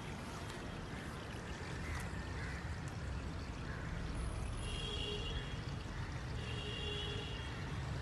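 Steady outdoor background noise, with two faint short high tones about five and seven seconds in.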